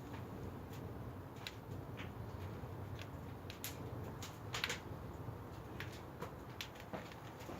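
Firewood burning in a wood-fired pottery kiln: a steady low rush of the fire with irregular sharp crackles and snaps.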